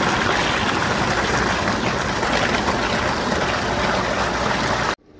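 Water gushing from a large irrigation pipe outlet and splashing into a concrete channel, a loud, steady rush that cuts off suddenly near the end.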